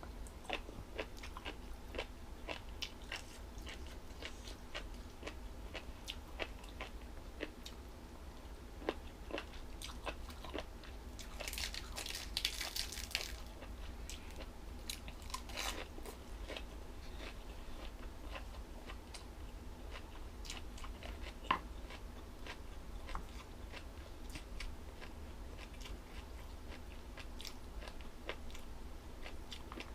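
Close-up mouth sounds of a person biting and chewing crunchy jellyfish salad: a steady run of crisp wet crunches and clicks, with a louder crunching stretch about twelve seconds in.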